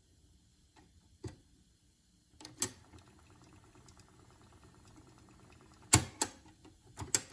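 Pioneer CTF-750 cassette deck between songs: a few sharp mechanical clicks, some in quick pairs, from its transport controls, over faint tape hiss.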